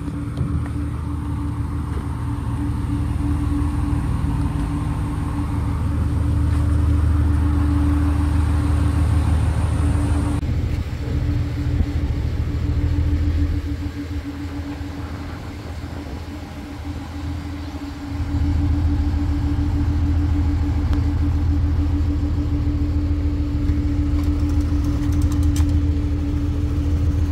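An engine running steadily: a low rumble with a constant hum over it. The rumble fades for a few seconds in the middle and then returns.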